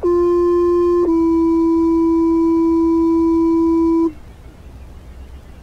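Fire department two-tone page received on a scanner radio: one steady tone for about a second, then a slightly lower tone held for about three seconds that cuts off sharply, leaving radio hiss. The tone sequence alerts the firefighters' pagers to a call before the dispatcher speaks.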